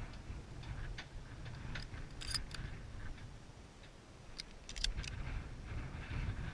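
Footsteps through tall dry grass, the stems rustling and brushing with scattered sharp ticks and crackles, most of them in two clusters a little past two seconds in and near five seconds in, over a low wind rumble on the microphone.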